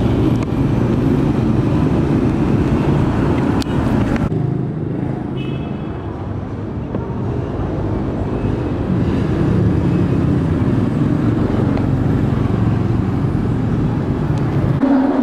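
Street traffic noise: motorbikes and cars running past in a steady low rumble, which thins abruptly about four seconds in.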